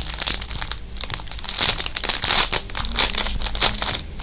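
Plastic packaging crinkling in the hands as it is opened, a busy run of irregular crackles and rustles.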